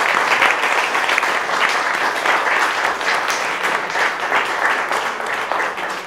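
Audience applauding, a steady patter of many hands clapping that begins to taper off near the end.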